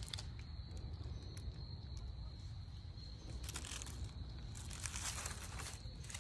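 Dry fallen leaves crinkling and crunching in two short bursts, about three and a half and five seconds in, over a low steady rumble and a faint, steady high-pitched tone.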